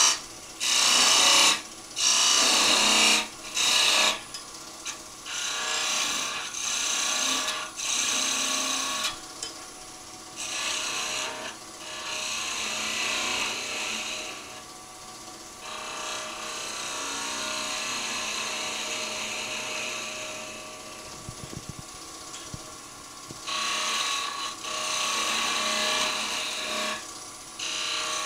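Turning tool cutting a small spindle finial on a running wood lathe, taking it down towards final thickness: a run of short loud cuts in the first few seconds, then longer, quieter passes.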